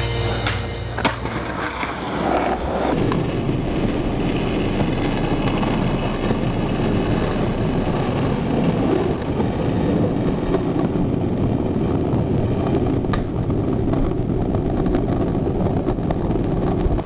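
Skateboard wheels rolling over rough asphalt: a steady gritty rumble, with a few sharp clacks of the board, one about a second in and one late on.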